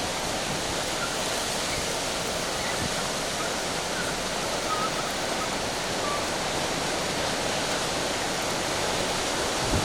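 Hurricane wind with rushing water and surf, a steady unbroken roar, with a couple of low buffets of wind on the microphone near the end.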